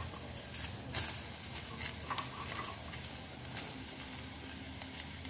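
Chunks of raw bottle gourd dropping into a small steel pot, a few soft knocks and clatters, over a faint sizzle of the onion and spice tempering frying in oil and ghee.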